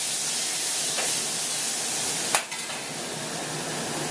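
Hamburger patty sizzling on a commercial flat-top griddle, a steady hiss. A light click comes about a second in and a sharper click about two and a half seconds in, after which the sizzle is a little quieter.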